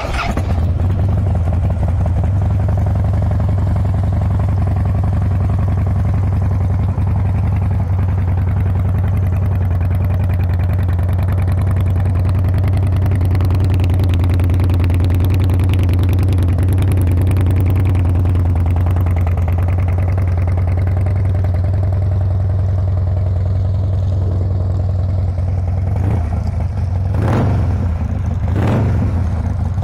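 2006 Harley-Davidson Dyna Wide Glide's fuel-injected Twin Cam 88 V-twin idling steadily through aftermarket Screaming Eagle mufflers.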